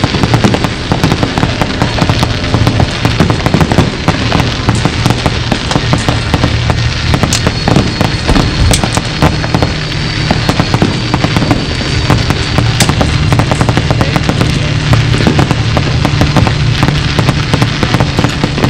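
Aerial fireworks display: a dense, unbroken run of bangs and crackles with deep booms underneath, going on without a pause.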